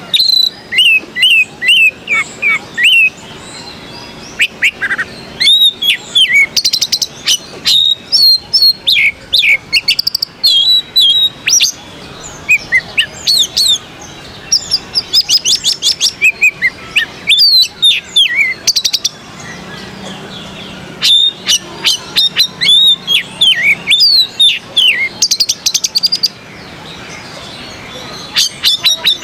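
Oriental magpie-robin (kacer) singing hard: a long, loud run of varied whistled phrases with notes sliding up and down, broken by fast rattling trills and clicks, with a few brief lulls.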